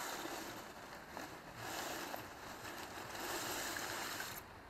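White granular mixture poured from a plastic bag into the water-filled tank of an HHO decarbonising machine: a hissing, pattering pour that swells three times and dies down near the end.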